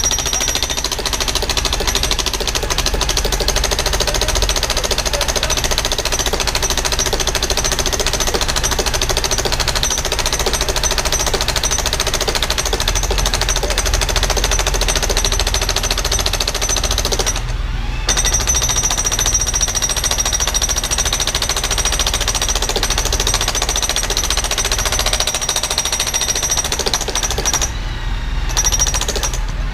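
Jackhammer hammering in long, rapid runs, with two short pauses: one a little past halfway and one near the end.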